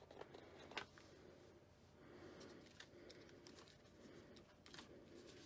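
Near silence with faint paper handling: stickers being peeled off a sticker sheet and pressed onto card, with a few light ticks.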